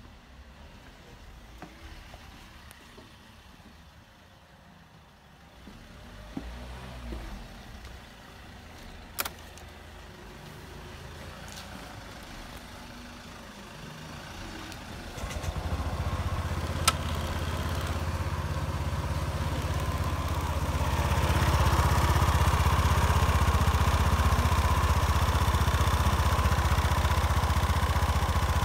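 Honda PCX125 scooter's single-cylinder four-stroke engine starting about halfway through and then idling steadily. Before it starts there are only a few faint clicks.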